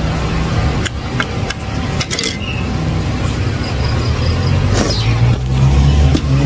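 A steady low engine rumble, most likely a vehicle running close by, swelling near the end. Short clinks and knocks of cutlery on a plate and of the phone being handled sound over it.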